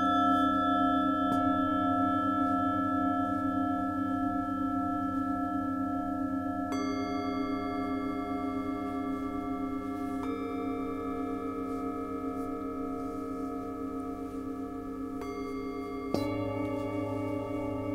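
Singing bowls struck with mallets, several ringing tones overlapping and wavering as they slowly fade. A new bowl is struck every few seconds, and the loudest strike, near the end, adds a deep hum.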